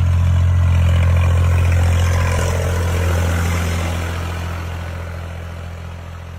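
An engine running at a steady speed with a strong low hum, getting gradually quieter over the last three seconds.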